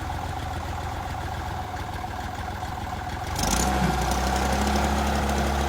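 Massey Ferguson 308 loader tractor engine running steadily, then getting louder about three and a half seconds in with a brief hiss, as it is put to work.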